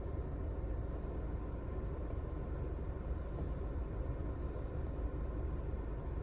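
Steady low rumble and hiss inside a 2025 Volvo XC60's cabin, with two faint ticks about two seconds in and about three and a half seconds in.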